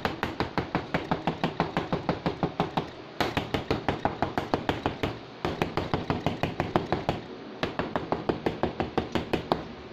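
A fork docking flattened pizza dough rounds, its tines tapping rapidly through the dough onto a metal tabletop at about six taps a second. The tapping breaks off briefly about three, five and a half and seven and a half seconds in.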